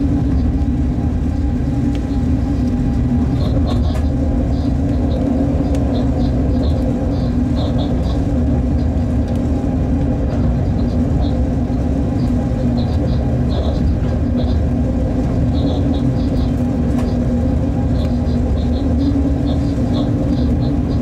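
Freight locomotive running under way, heard from the cab: a steady rumble with a constant low drone, and clusters of short faint high chirps now and then.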